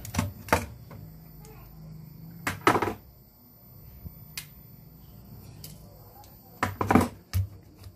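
Clicks and knocks of hand tools and metal parts being handled on an amplifier chassis, with a loud cluster about three seconds in and another near seven seconds, over a faint low hum.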